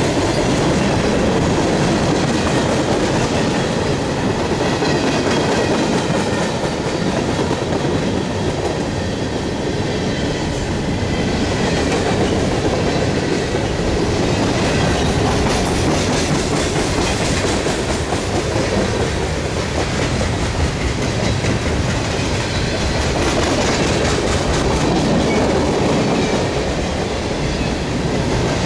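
Freight cars of a mixed freight train (tank cars, hoppers, boxcars) rolling past close by, their steel wheels clacking steadily over the rail joints with a continuous loud rumble.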